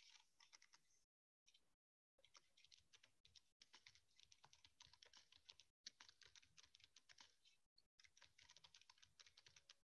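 Faint typing on a computer keyboard: quick keystrokes in runs, with a few brief pauses. Heard through a video call, which cuts the sound out to dead silence now and then.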